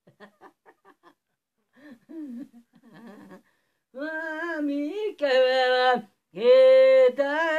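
A man's soft chuckles, then from about four seconds in a man singing in long, held notes that bend and glide between pitches.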